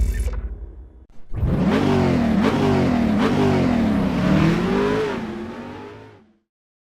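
A motor vehicle's engine revving, its pitch rising and dipping several times, then dying away. Music fades out just before it starts.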